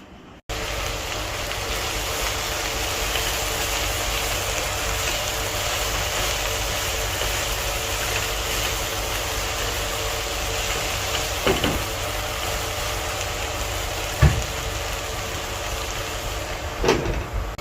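A small motor or fan running with a steady hum and hiss, and a few short knocks in the second half.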